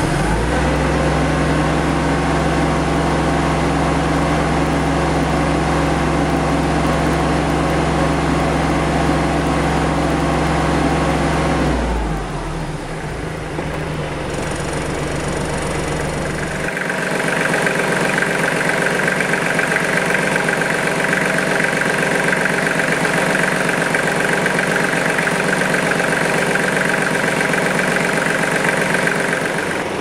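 Kubota KL30 tractor's diesel engine running steadily. About twelve seconds in, the engine note drops and changes. From about seventeen seconds in, a steady high whine joins it.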